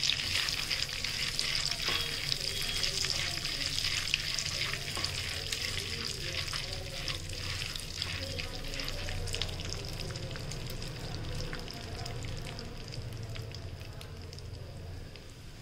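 Roasted split chickpeas (dalia) and curry leaves sizzling in hot butter in a non-stick kadai, with a silicone spatula stirring and scraping through them. The sizzle slowly fades.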